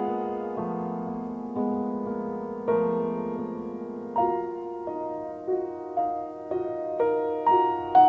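Background music: a solo piano playing slow, gentle notes, a new one struck about every half second to second.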